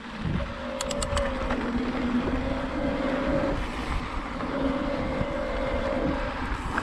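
Specialized Turbo Levo electric mountain bike riding a dirt trail: the mid-drive motor's steady whine under pedal assist, wavering slightly, over a low rumble of tyres and air. A few quick clicks come about a second in.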